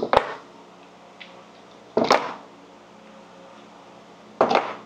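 Heavy steel blocks set down one at a time on a wooden workbench: three short clunks about two seconds apart.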